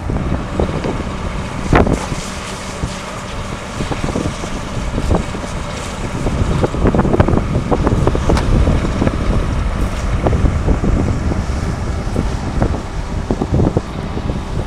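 Wind buffeting the microphone in a low, uneven rumble over a fire engine's motor running steadily, with a few scattered knocks.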